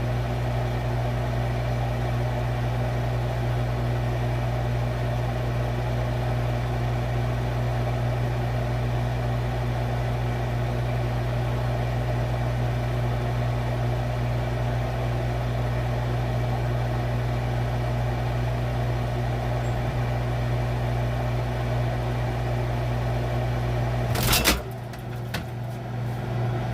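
Steady electric hum of a refrigerator running, heard from inside the fridge. About 24 seconds in, a sudden clatter breaks in, after which the hum is quieter and uneven.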